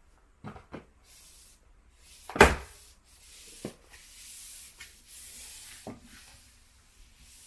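Quickle Wiper floor mop swishing across the floor, with several light knocks and one loud thump about two and a half seconds in.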